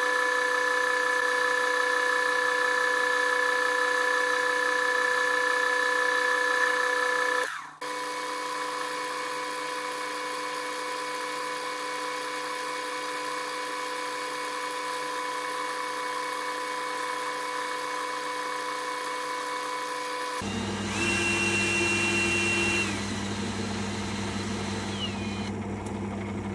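Small metal lathe running with a steady motor whine while turning a Morse taper. The pitch and loudness change abruptly twice, once about a third of the way in and once near the end.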